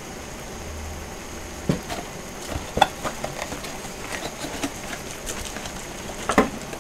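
A pan of spicy noodle soup simmering on a tabletop burner, with a steady bubbling hiss. A plastic seasoning packet is handled over it, giving a few sharp clicks and crinkles, the loudest near the end.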